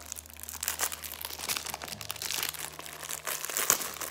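Thin clear plastic packaging bag crinkling and crackling as it is handled and pulled open, with a sharper crackle about three and a half seconds in.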